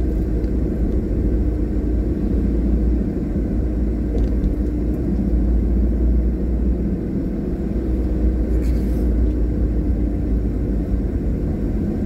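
Steady low rumble of a car's engine and tyres on the road, heard from inside the moving car, with a faint steady hum over it.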